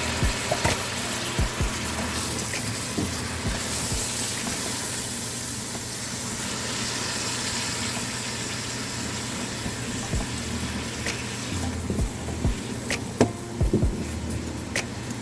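Vegetables cooking in a hot pot of oil and butter, a steady hiss that grows louder for several seconds in the middle, with scattered clicks and knocks from the pot.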